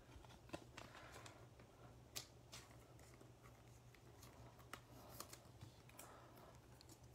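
Near silence with faint, scattered clicks and rustles of trading cards being handled and set down on a table.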